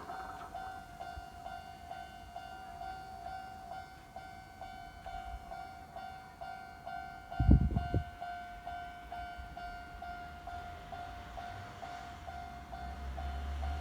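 Japanese level-crossing warning bell ringing in a steady, even repeating pattern, with a brief loud low thump about seven seconds in. Near the end a low rumble builds as a train approaches the crossing.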